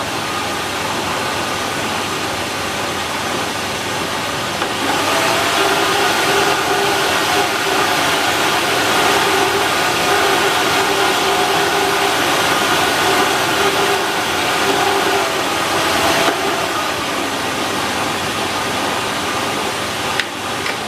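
Lux Royale twin-turbine canister vacuum running with its hose set aside, so the motor is heard without hose airflow noise. It starts at its minimum setting, steps up to a louder, higher-pitched level about five seconds in, drops back about sixteen seconds in, and is switched off near the end, the motor whine falling as it winds down.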